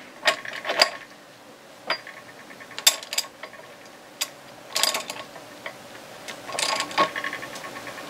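Socket ratchet clicking in short runs, several times, as it is swung back between pulls on the forcing screw of a bearing puller drawing the carrier bearing out of an outboard's lower unit.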